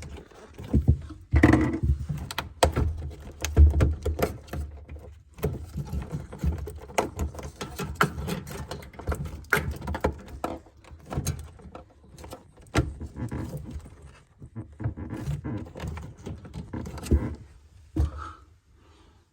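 Irregular clicks, knocks and rattles of parts being handled and fitted, with a few louder thumps.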